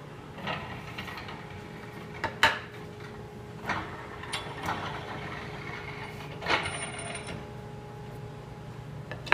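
Wooden boards knocking against the wooden jaws of a Moxon vise, with its handwheels being turned on the threaded screws. Several separate sharp knocks and clatters, the loudest about two and a half seconds in and a longer clatter later on.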